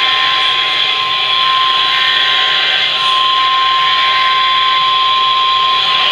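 Loud, steady radio static hiss with a single steady tone just above 1 kHz held through it: a weather-radio alert tone received over a noisy radio signal.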